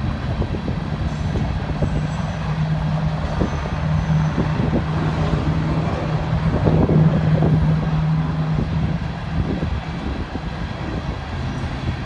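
A heavy engine runs with a steady low hum over a rumble. The hum fades away about nine seconds in.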